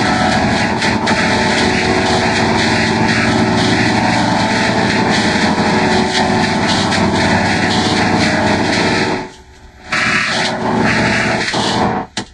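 Loud, dense, distorted drone of many layered copies of a Fisher-Price talking puppy toy's electronic voice and music, run through audio effects until no words come through. It breaks off briefly about nine seconds in and again near the end.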